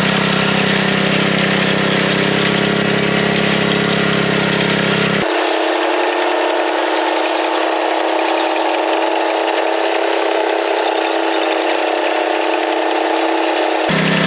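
Small gasoline engine of a walk-behind bed edger running steadily. About five seconds in its low rumble drops out abruptly, leaving a higher, thinner engine sound, and it comes back near the end.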